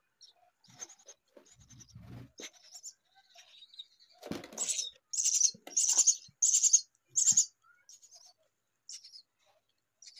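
Baby myna birds calling: a run of five loud, high calls about two-thirds of a second apart, with softer chirps before and after and a few soft low thumps.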